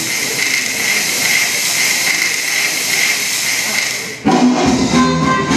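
A steady high hiss, with no low sound under it, that cuts off about four seconds in when loud swing music starts.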